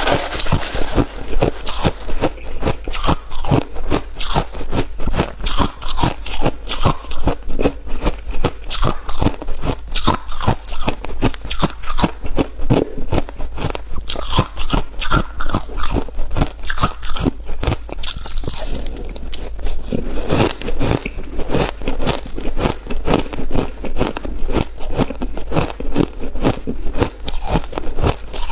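Ice being bitten and chewed close to the microphone: a steady run of crisp crunches, a few each second.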